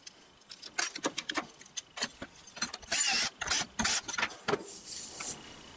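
Cordless drill boring through an aluminium plate in several short bursts, after a few clicks and knocks of the metal and tools being handled.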